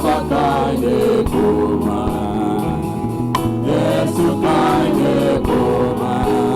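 Gospel worship music: a choir singing a praise song.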